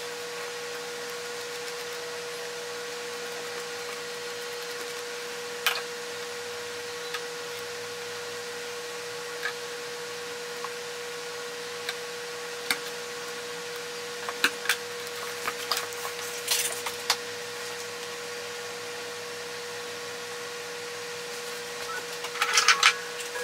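A steady, even-pitched hum with a faint hiss runs underneath. Over it come sparse light taps and rustles of leather and lining being pressed and folded by hand; they are busier in the middle and louder just before the end.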